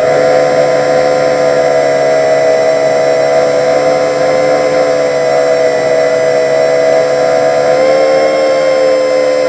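Electric RC jet's brushless motor and 9x6 propeller running at steady throttle, a loud, even whine with a light rushing noise. About eight seconds in, the pitch shifts slightly with a small change in throttle.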